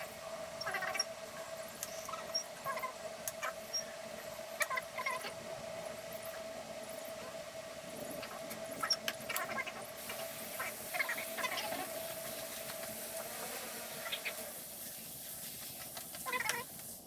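Compressed air hissing with a steady whistle as the air cannon's chamber is slowly pressurised for a leak test. The whistle stops about 13 seconds in. Short, irregular chirps come and go throughout.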